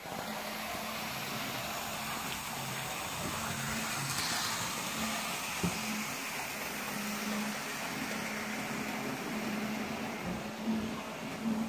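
Hornby OO gauge model locomotive running on the layout: the small electric motor whirs steadily with wheels rolling on the track, and one sharp click comes about halfway through.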